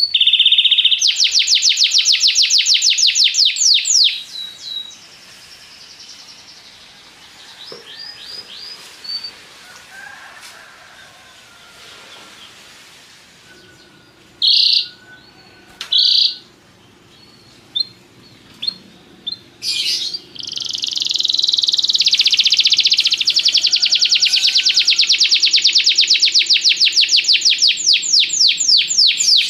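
Domestic canary singing: loud rapid trills of fast repeated notes at first, a quieter stretch of scattered short notes and brief bursts in the middle, then a long unbroken rapid trill through the last third.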